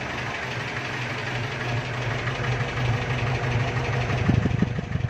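Mahindra CJ-type jeep's DI diesel engine idling just after a cold start, heard at the exhaust tailpipe, with a few louder low thumps about four seconds in.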